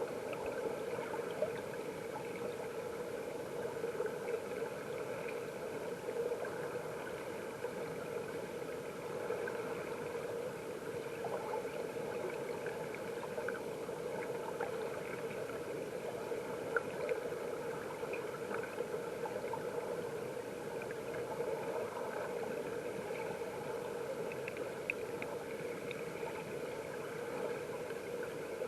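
Mountain stream water heard through a camera held underwater: a steady, muffled rush with scattered small ticks and pops.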